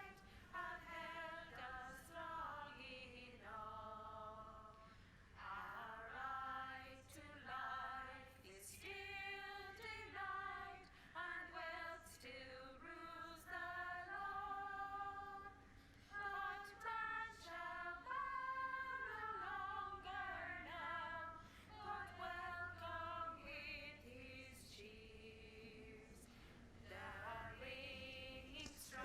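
Unaccompanied female singing of a slow labour song, with long held notes.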